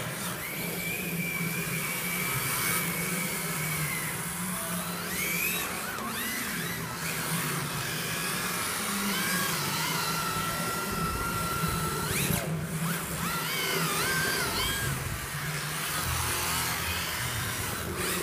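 Electric motors of MST FXX-D radio-controlled drift cars whining, the pitch holding, then rising and falling as the throttle is worked through the drifts, over a steady low hum.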